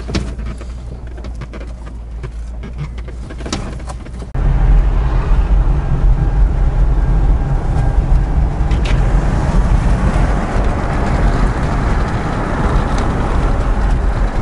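Inside a vehicle cabin: a low engine rumble with scattered knocks and rattles while crawling over a rough dirt track. About four seconds in it cuts abruptly to a much louder, steady rumble and hiss of tyre and wind noise at highway speed.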